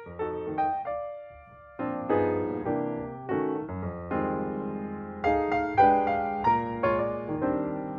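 Background piano music: notes and chords struck and left to ring, thinning out about a second in, then fuller chords from about two seconds on.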